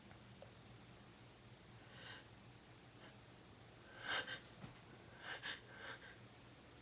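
A person sniffling and breathing through a runny nose in short, faint bursts: a stronger sniff about four seconds in, then two quick ones about a second later.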